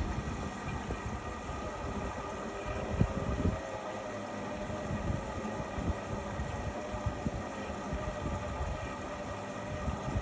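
Indesit MyTime EWE 71252 washing machine running: a steady motor whine that wavers slightly in pitch, over irregular low thumps and rumble from the drum, with one stronger thump about three seconds in.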